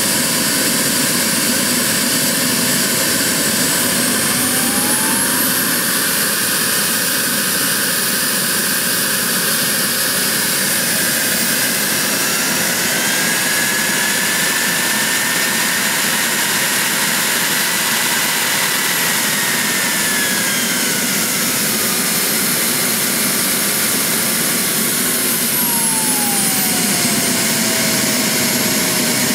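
Small model jet turbine running, a steady rush with a whine that rises in pitch about five seconds in, climbs higher again around twelve seconds, holds, then glides back down to its starting pitch near the end: the turbine being throttled up and back down.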